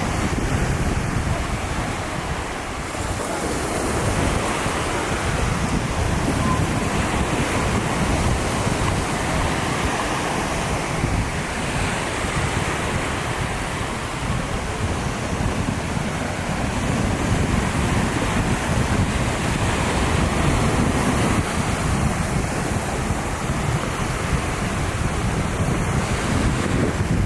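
Ocean surf washing onto the beach in slow swells, with wind buffeting the microphone.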